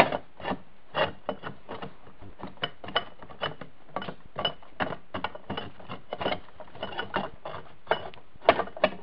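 Metal transmission case clunking and scraping against the gears and base plate as it is tilted and worked down past the big gear, a run of irregular knocks a few times a second, with a couple of louder ones near the end.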